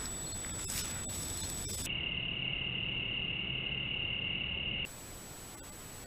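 A steady, high-pitched buzzing drone, like an insect chorus, cuts in about two seconds in and stops abruptly about three seconds later. Around it is quiet outdoor ambience with a few faint clicks and a thin, steady, high electronic whine.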